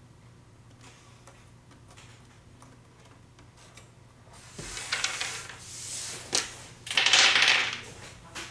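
Small game dice rattled in a hand and thrown onto a tabletop, clattering for a few seconds starting about halfway in, loudest near the end.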